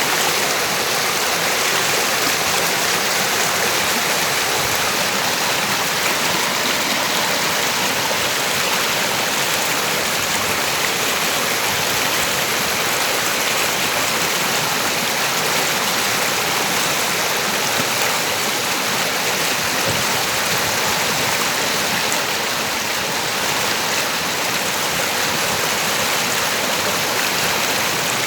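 A river's water running over rocks: a steady, unbroken rush.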